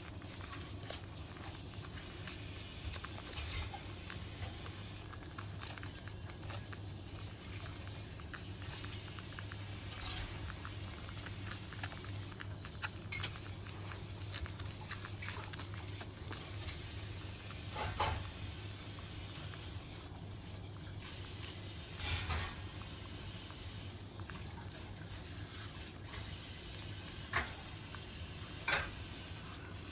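Week-old Shiba Inu puppies suckling at their mother's teats: a steady patter of small wet smacking and clicking sounds, with a few louder brief sounds scattered through.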